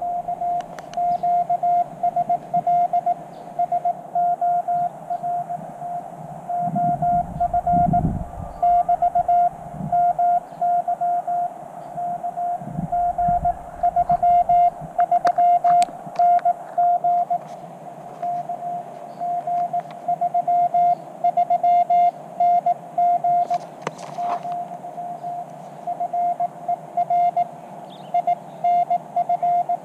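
Morse code (CW) from a portable amateur radio transceiver: a single steady beep keyed on and off in dots and dashes. A few low rumbles come through about a third of the way in.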